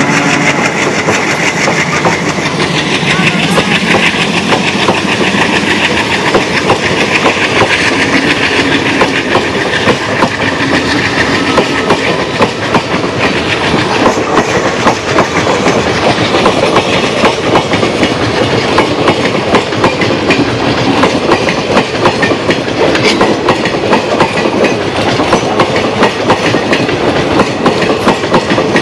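Train running on track, a loud steady rumble full of rapid clickety-clack from wheels over rail joints. A diesel locomotive's engine drone fades out in the first couple of seconds, leaving the clatter of the coaches.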